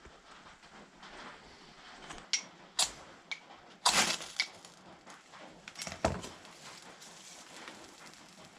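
Fire steel (ferro rod) scraped hard several times to throw sparks onto tinder: short, sharp rasps a couple of seconds in, the longest and loudest one about four seconds in, then a duller knock about six seconds in.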